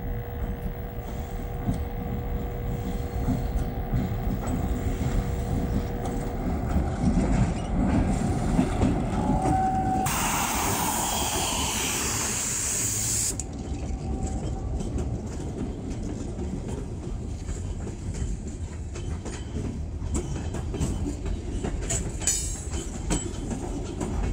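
Canadian National diesel freight train rolling past with a steady low rumble. A loud hiss sounds for about three seconds around when the locomotive goes by, and wheel clicks on the rails run through the later part as the hopper cars pass.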